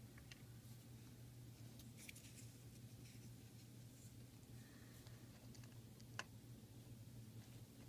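Near silence with faint handling noise from an upright piano action part being worked by hand: a few light clicks and scrapes, with one sharper click about six seconds in, over a steady low hum.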